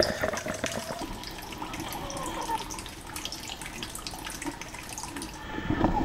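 Water running and trickling, dotted with many small drips and clicks.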